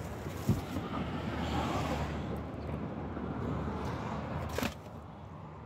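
A vehicle passing on the road, its tyre and engine noise swelling and then fading, with a short knock near the end.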